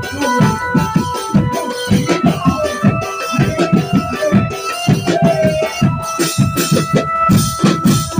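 Lively band music: fast, dense drumming under a held keyboard-like melody, with jingling percussion on top.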